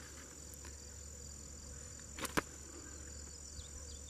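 Steady high-pitched drone of insects calling at dusk, with two sharp clicks a little after two seconds in.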